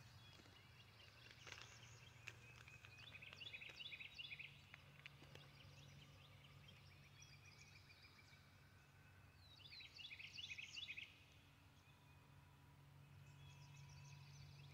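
Faint birdsong: a songbird singing bursts of quick high chirps about three seconds in, again around ten seconds, and near the end, over a faint steady low hum.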